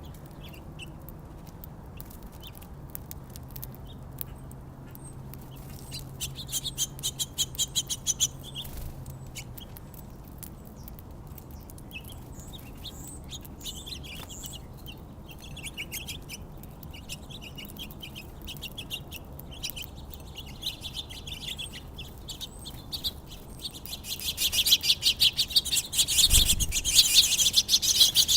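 Small songbirds chirping, with a burst of rapid chattering about six seconds in and a dense, louder run of chirps over the last few seconds.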